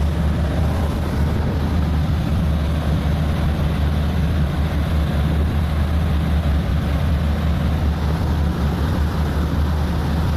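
A motor yacht's twin 1,050-horsepower marine diesel engines running at high speed: a steady, deep drone with an even rushing noise over it.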